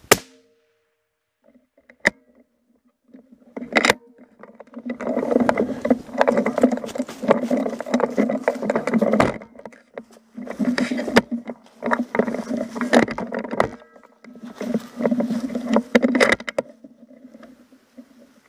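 Handling noise from a rifle carrying a mounted camera as it is moved to a new firing position: a couple of sharp clicks, then three long bursts of rubbing and scraping against the gun and the ground.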